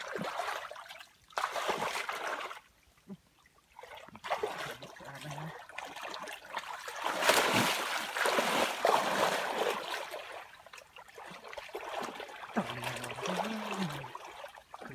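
Hands and arms sloshing and splashing through shallow muddy water, groping in the soft mud for fish, in irregular bursts that are busiest in the middle.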